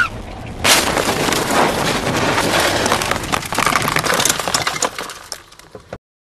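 Car crash: a sudden loud impact about a second in, followed by several seconds of crunching, scraping and rattling debris that fades away before the sound cuts off.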